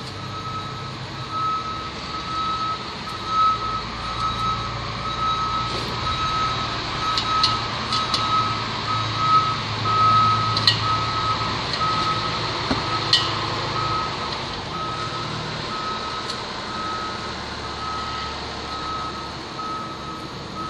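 A vehicle's reversing alarm beeping steadily and evenly over a low engine rumble, with a few light clicks.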